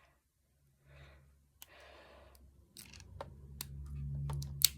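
Small plastic clicks from a Transformers figure's parts being pulled out and pushed in, with a sharp snap just before the end. Soft breaths come first.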